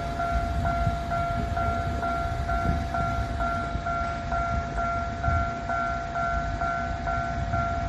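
Japanese railway level-crossing warning bell: an electronic two-tone ding repeating in a steady even rhythm, signalling that a train is approaching, over a low rumble.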